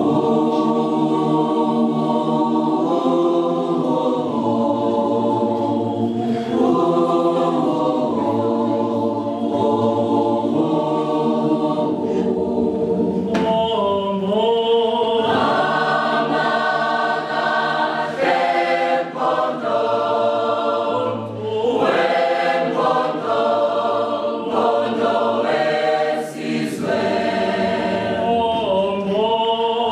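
Mixed-voice university residence choir singing a cappella in harmony, holding sustained chords that change every second or two. The sound grows fuller and brighter about halfway through as the higher voices come in more strongly.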